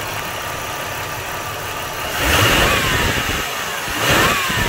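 A 1996 Buick Century's 3.1-litre (3100 SFI) V6 idling, then the throttle is snapped twice, about two seconds in and again near the end, each rev rising and dying back to idle. It is a snap test with a fuel pressure gauge on the rail, on an engine that the mechanic says misfires from weak ignition coils and lean injectors.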